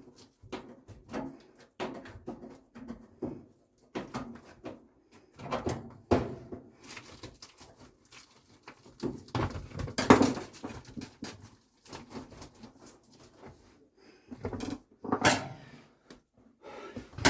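Irregular knocks, clunks and scraping as a tumble dryer part is forced into place by hand after some struggle. The loudest knocks come about ten seconds in and again near the end.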